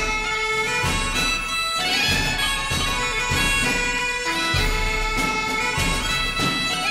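Background music: bagpipes playing a tune over held notes.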